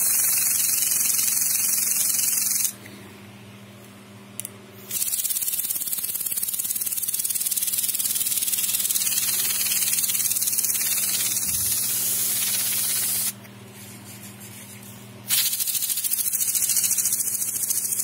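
Canned compressed air (air duster) blasting through its straw nozzle to spin a fidget spinner: three long hissing bursts, the first about three seconds, the middle about eight seconds and the last about three seconds, each starting and stopping abruptly.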